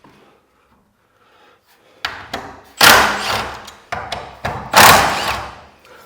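A few sharp knocks on the metal garage door while a hinge is being worked on, then two loud bangs, each ringing away over about a second.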